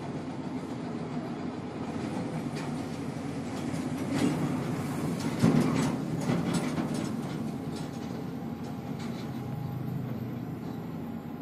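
Heavy diesel engines running: a steady low rumble, with a run of clanks and rattles around the middle as a truck passes close by.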